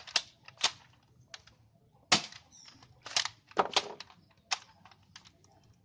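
Sharp plastic clicks and taps at irregular spacing, about a dozen, as a toy gun is handled.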